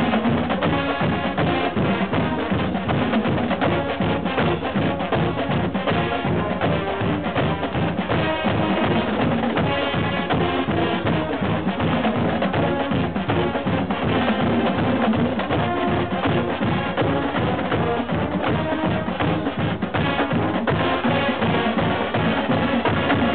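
Marching band playing: a drumline of snare and bass drums keeps a steady quick beat under sousaphones and other brass.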